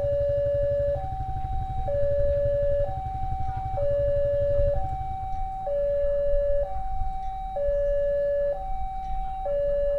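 Indonesian railway level-crossing warning alarm sounding its two-tone signal, swapping between a lower and a higher tone, each held for about a second: the crossing is closed for an approaching train. A low engine rumble underneath stops about halfway through.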